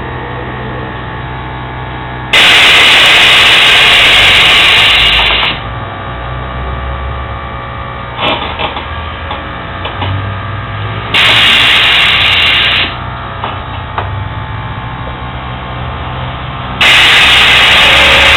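Car sound system in an Audi A3 played in three loud blasts, each starting and stopping abruptly and so loud that it overloads the recording into harsh distortion, over a steady low hum between them.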